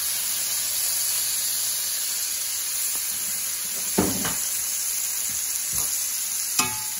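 Sea scallops searing in butter, bacon fat and garlic in a hot cast iron skillet: a steady sizzle, with a brief knock about four seconds in and another near the end.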